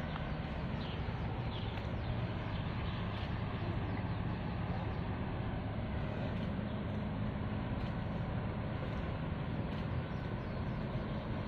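Steady low hum of a large vehicle carrier's engines as the ship moves slowly past at close range, under a steady haze of outdoor noise.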